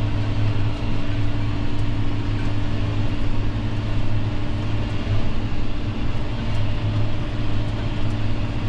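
John Deere tractor engine running steadily under load while pulling a subsoiler, heard from inside the cab as a constant drone with a steady low hum.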